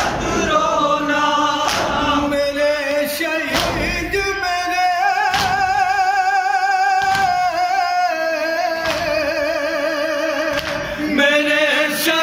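Men's voices singing a noha, an Urdu mourning elegy, in unison into a microphone, with long held notes that waver with vibrato in the middle. Sharp thuds of chest-beating (matam) strike through it roughly every one and a half to two seconds.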